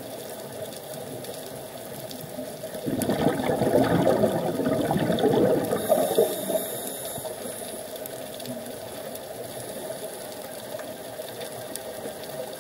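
Scuba regulator exhaust bubbles heard underwater: a crackling, bubbling rush from an exhaled breath, starting about three seconds in and lasting about four seconds. Before and after it there is a steady faint underwater rush.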